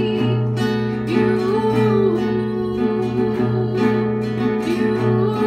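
Strummed acoustic guitar music in a steady rhythm, with a melody line gliding over the chords.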